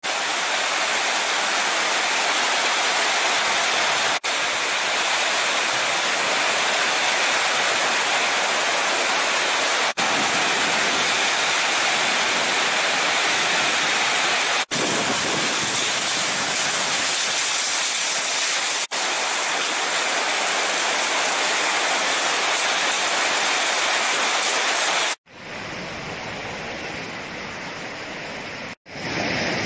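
Heavy rain pouring down on trees, a loud, steady hiss broken by brief dropouts where the clips are joined. About 25 s in, it gives way to the quieter sound of muddy floodwater flowing across a road, and louder rushing water returns near the end.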